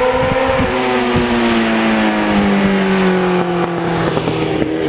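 Yamaha FZR sport bike's engine running as the bike approaches, its note falling slowly and steadily.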